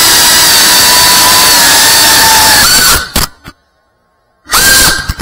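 FPV quadcopter's brushless motors and propellers whining at high throttle, the pitch shifting a little. The sound cuts off about three seconds in, and after a second of near silence the motors spin up again sharply near the end.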